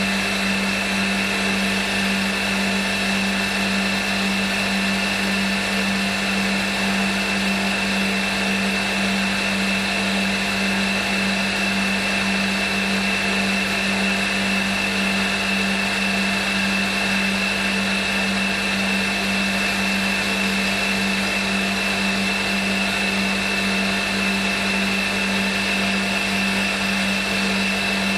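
CNC milling machine spindle running at a steady speed, a constant hum with a high whine, as an end mill cuts flats on a metal headphone jack plug.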